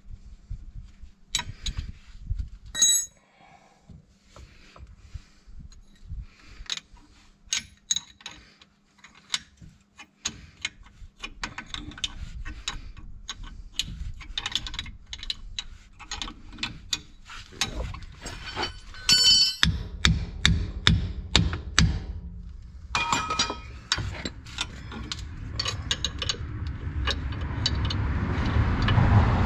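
Metal hand tools clicking, ratcheting and clinking as a puller is worked on a stubborn tie rod end, with a couple of brief ringing metallic strikes. Over the last several seconds a rougher, louder grinding noise builds.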